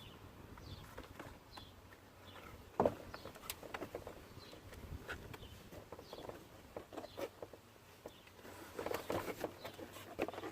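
Scattered clicks and knocks of plastic door trim being worked and popped loose on a pickup door, with one sharp knock about three seconds in and a quick run of rattling clicks near the end.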